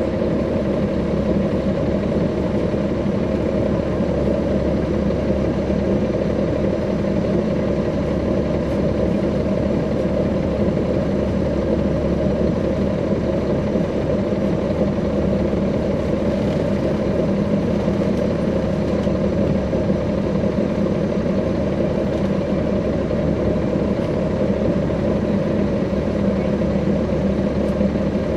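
A 2009 NABI 40-SFW transit bus's Caterpillar C13 ACERT diesel engine idling steadily, heard from on board the bus.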